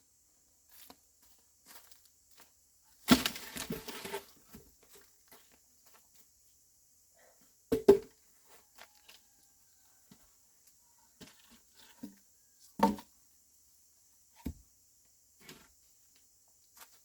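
Dry branches and firewood being handled and dropped onto a pile, with irregular cracking, snapping and clattering knocks. The loudest is a burst of crackling about three seconds in, then single sharp knocks near the middle and a little later.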